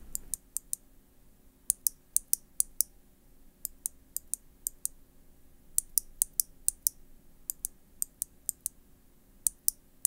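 Loose Kailh BOX clicky switches pressed by hand in sets of about five sharp, crisp clicks. Quieter sets from a BOX White switch alternate with louder, slightly higher-pitched sets from a BOX Navy switch, whose thicker click bar makes it much louder.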